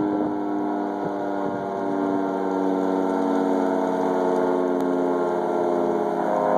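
24-horn outdoor tornado warning siren sounding a loud, steady tone rich in overtones, its pitch holding nearly level.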